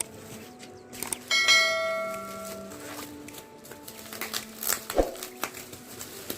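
A single bell-like chime strikes about a second in and rings out, fading over a second and a half, over soft sustained background tones, with a few sharp clicks.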